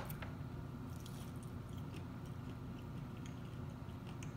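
A person chewing fried oysters close to the microphone, with faint, scattered mouth clicks and crackles over a low steady hum.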